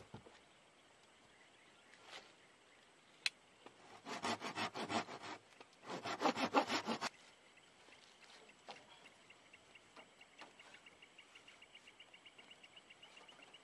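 A dry wooden pole sawn by hand: two short bouts of quick back-and-forth sawing strokes, with a single sharp click before them. After them a faint, evenly pulsing insect chirp.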